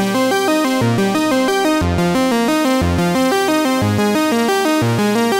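Background music: an upbeat synthesizer tune with a quick run of notes over a steady bass beat.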